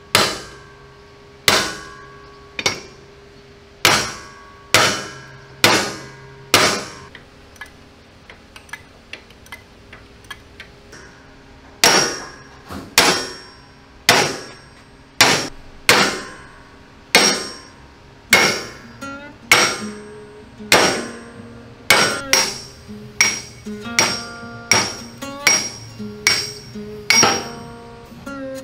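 Hammer striking steel, driving seized pins out of a StuG III driver's vision block mechanism: sharp ringing metal-on-metal blows, about one a second at first, a few light taps near the middle, then steady blows quickening to about two a second.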